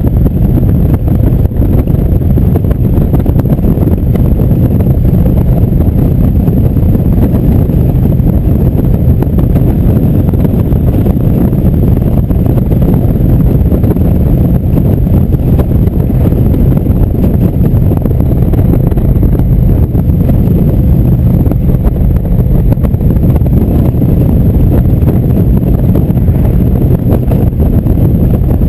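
Indian V-twin motorcycle cruising at a steady highway speed. The engine's even drone is mixed with wind rushing over the handlebar-mounted microphone.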